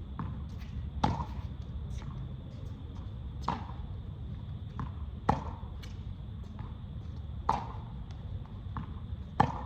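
Tennis ball being hit with a racket, five sharp strikes with a short ring about every two seconds, with fainter ball bounces between them, over a steady low rumble.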